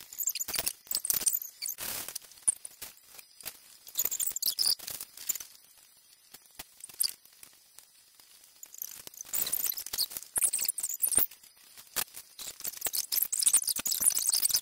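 Small plastic LEGO pieces clicking and clattering on a hard tabletop as they are handled, sorted and pressed together, in irregular clusters of light ticks with a quieter stretch in the middle.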